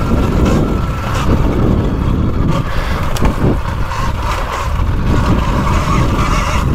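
2020 KTM Freeride E-XC electric dirt bike ridden over a dirt woods trail: a steady low rumble of tyres and chassis over the ground, with a few knocks, and the faint whine of the electric motor and gears.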